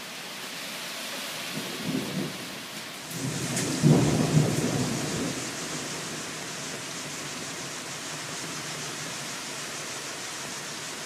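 Thunder rumbling over a steady hiss of rain: a short rumble about two seconds in, then a louder one from about three to five seconds in that slowly fades.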